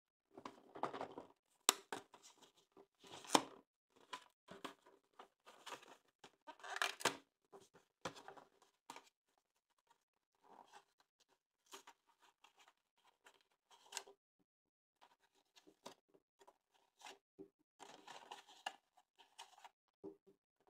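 Rustling and tearing of a Kinder Surprise egg's foil wrapper by hand, in irregular bursts with a few sharp snaps and clicks.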